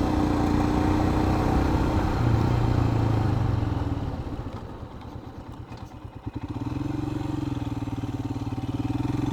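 Royal Enfield Himalayan's single-cylinder engine pulling up a hill. About four seconds in it drops to a quiet, slow pulsing as the throttle eases off, then picks up again about two seconds later.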